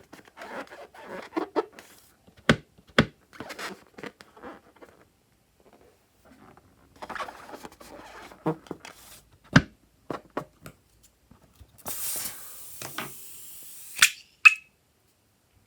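Glossy slime being handled and mixed, making wet sticky clicks, squelches and pops. About twelve seconds in there is a steady rustling hiss for about two seconds, followed by a short squeak.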